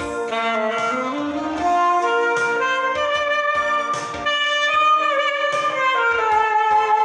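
Music: a solo melody instrument with vibrato, playing long held notes over a backing track with a steady drum beat.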